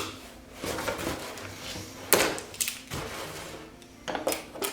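Sharp clicks, knocks and scraping of vice grips working stuck Phillips screws out of a snowmobile's plastic windshield and fairing. The louder knocks come about two seconds in and again near the end.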